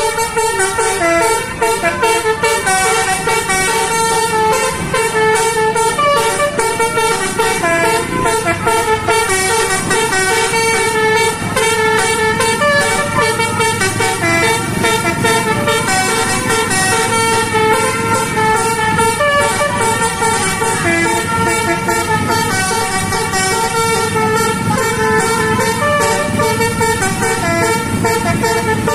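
Multi-tone bus air horn (a 'telolet' horn) playing a tune of held notes that step up and down in pitch, over a low engine rumble.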